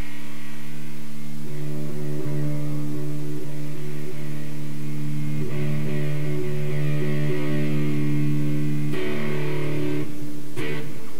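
Electric guitar played through a SupaSixties ToneBender Deluxe fuzz pedal: long held notes sustaining, with a new chord struck about nine seconds in.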